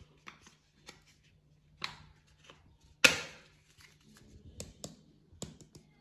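Light clicks and taps of a spice jar and spoon being handled as ginger powder is spooned into a glass bowl of sliced chicken, with one sharper knock about three seconds in.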